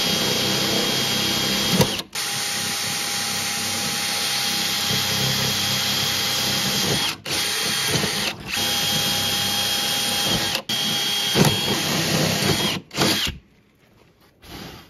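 DeWalt cordless drill running under load with a steady whine as it bores 3/16-inch holes through a snowmobile running board and tunnel-support plate. The sound breaks off briefly about five times as the trigger is released between holes, and stops about 13 seconds in.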